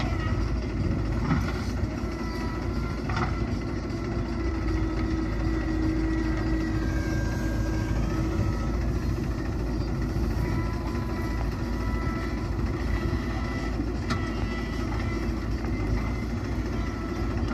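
Diesel engine of a JCB backhoe loader running steadily while digging and loading soil, with a few short knocks.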